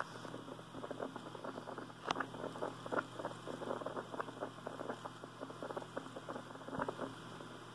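Faint irregular crackling and ticking over a steady low hum on a light aircraft's cockpit intercom audio, with one sharper click about two seconds in.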